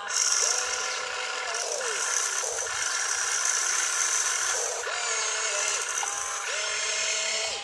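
Electric motors and gears of an RC excavator whining as the boom and bucket move. The whine rises, holds and falls again about five times, with some gear rattle.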